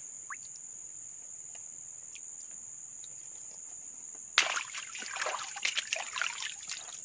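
Insects chirring with a steady high tone; about four seconds in, loud irregular water splashing begins as a mesh landing net holding a large lembat catfish is plunged into shallow muddy swamp water.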